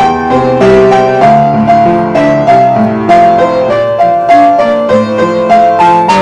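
Upright acoustic piano played by hand: a slow pop-ballad melody in the upper notes over a continuous flowing chord accompaniment, each note struck and then sustained.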